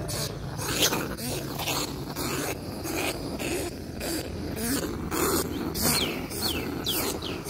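Rustling and footsteps through grass and weeds, in a run of short brushing sounds, with a few short high chirps near the end.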